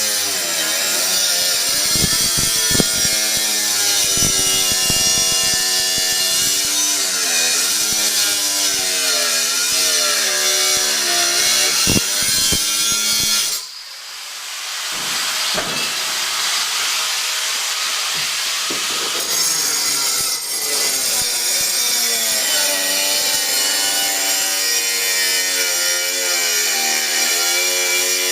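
Refrigerator being dragged across the floor: a continuous scraping rub with a wavering squeal that rises and falls in pitch, easing to a quieter hiss for a few seconds about halfway through.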